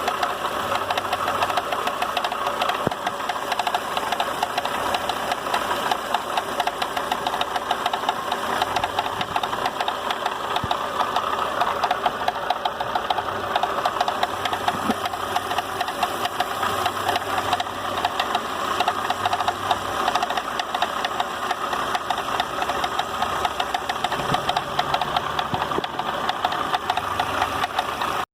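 Chevrolet Onix 1.0 engine running with a steady, fast knocking tick: the noise of an excessively slack timing belt, traced to a worn water pump with play in its rotor.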